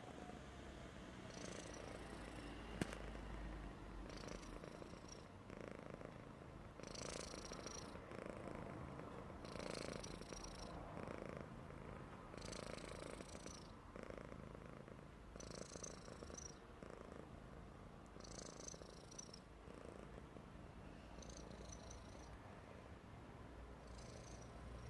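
Persian cat snoring: slow breaths about every three seconds, each carrying a high wheezy whistle, over a low steady purr. There is one sharp click about three seconds in.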